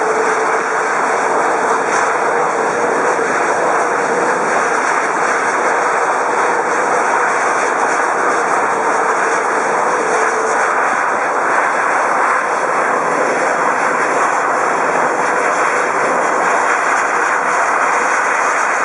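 Airbus A330-300's Rolls-Royce Trent 700 jet engines running at taxi power, a steady loud rush of jet noise. A low steady whine under it fades out about halfway through.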